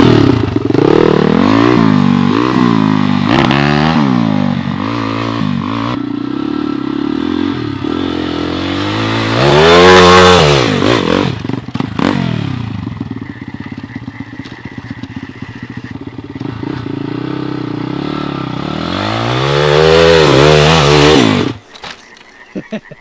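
Pit bike engine revving up and down repeatedly as it is ridden at a short steep climb, with two long hard revs, the second near the end, before the engine sound cuts off suddenly. The bike does not make it up the slope: it needed more speed.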